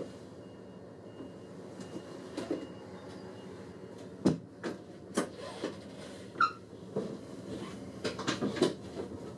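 Moving train heard from inside the driver's cab: a steady low running drone with irregular sharp knocks and rattles from the cab and running gear, and a brief squeak about six and a half seconds in.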